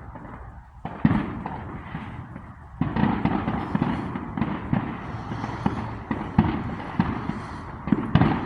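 Fireworks going off: a single bang about a second in, then from about three seconds a dense, rapid run of crackling pops and bangs.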